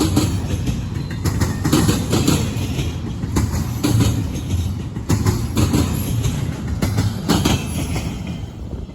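Double-stack intermodal freight cars rolling past, their wheels clacking over rail joints in a steady rumble. The sound fades near the end.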